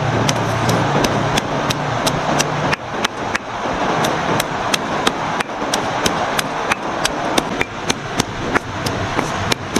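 A small hand-held stone pounding garlic and shallots against a flat, wet river boulder, as a stone pestle on a rock mortar. Sharp, regular taps come about three a second.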